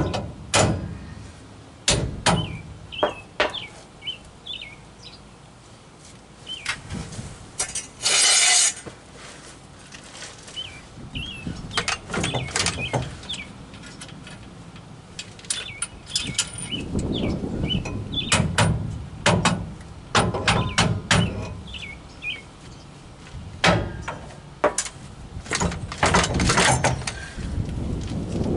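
Irregular metal clanks and knocks of hand tools on a pickup's rear axle parts (U-bolts, lift blocks and bracket), busiest in the second half, with a short loud hiss about eight seconds in. Small birds chirp now and then in the background.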